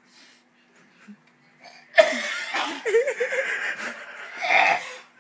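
Men laughing loudly, breaking out suddenly about two seconds in after a quiet start, with wavering, wheezy peals and another loud burst near the end.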